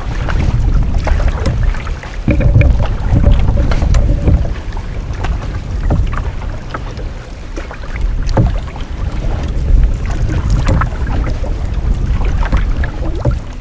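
Wind buffeting the microphone in gusts, with water slapping and splashing against the hull of a moving canoe in irregular knocks.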